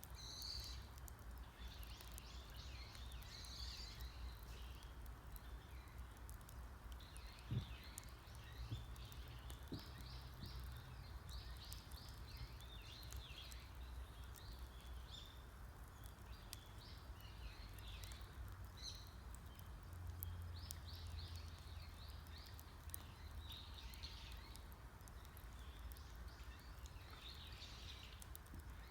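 Wood campfire crackling with small scattered pops while wild birds chirp and sing repeatedly, over a low steady rumble. One louder pop or knock comes about seven and a half seconds in.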